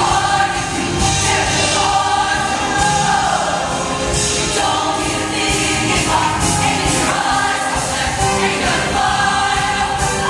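Show choir singing in full chorus, holding sustained chords over an accompaniment with a steady beat.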